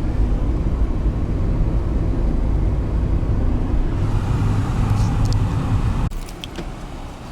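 A car driving: a steady low road and engine rumble that drops off suddenly about six seconds in.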